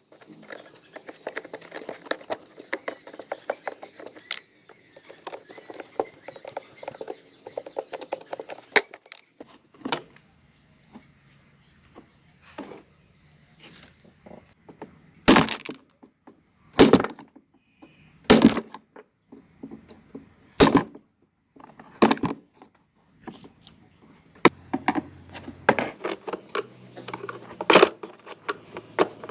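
Metal bicycle parts and hand tools clinking and rattling as they are handled, followed by a series of sharp knocks about a second and a half apart.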